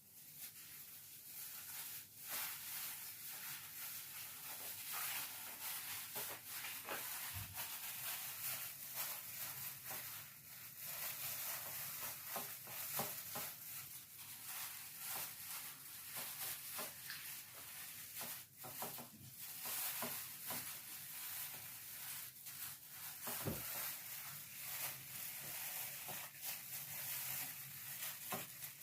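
Hands pressing and rubbing dry breading mix onto a raw chicken piece in a bowl: a soft, steady, gritty rustling with many small irregular scrapes and crackles.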